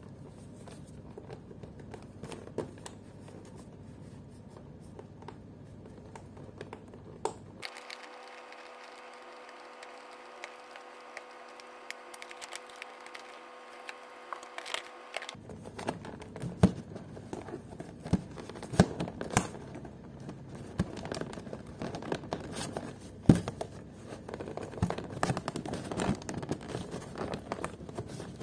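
Hands handling and opening a cardboard action-figure box with a plastic tray inside: scattered taps, scrapes and plastic crinkles, getting busier in the second half. For several seconds in the middle, a faint steady hum replaces the handling noise.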